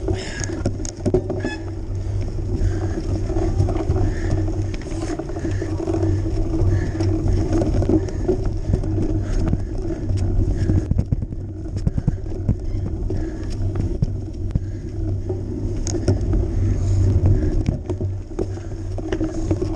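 Cyclocross bike riding over a muddy, snowy dirt track, heard from a camera mounted on the bike or rider: a steady rumble of the knobby tyres and drivetrain, with frequent small knocks and rattles as the bike jolts over bumps.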